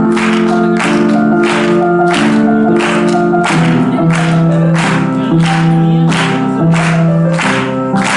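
Music with a steady beat of about two hits a second over held keyboard-like chords that change every second or so.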